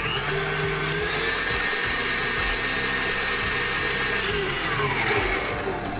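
KitchenAid Ultra Power stand mixer whipping gelatin and cool water with its wire whisk. The motor whine rises as it starts, runs steady, then winds down over the last couple of seconds as it is switched off.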